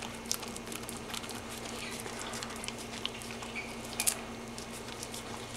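Airedale terrier licking soft-serve ice cream from a cone: soft wet smacking and small clicks of tongue and jaws, with one louder click about four seconds in.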